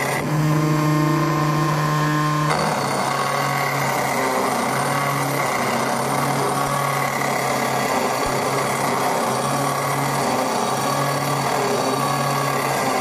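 CNC granite engraving machine running, its spindle whining steadily as the engraving bit grinds into black granite. The tone turns rougher and grittier about two and a half seconds in.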